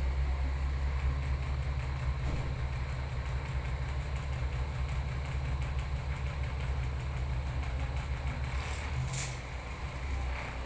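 A steady low rumble that dips briefly near the end, with a short sharp hiss or scrape about nine seconds in.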